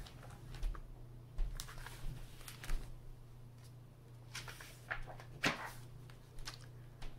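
Handling of a hardcover picture book: a few light taps and knocks and a brief soft paper rustle as the book is lowered and its pages are moved, with one louder knock about five and a half seconds in, over a low steady hum.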